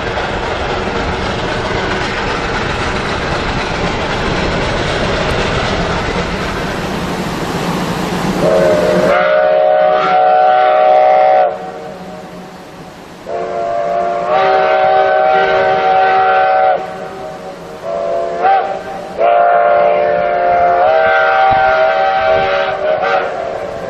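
A steady rushing train noise, then a steam locomotive's chime whistle blowing four times, long, long, short, long: the standard grade-crossing whistle signal.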